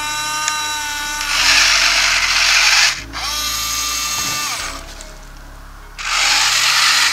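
Huina 583 RC wheel loader's electric motors and plastic gearboxes running as it drives: a steady high whine in two stretches, the first rising as it starts, alternating with louder, rougher gear noise.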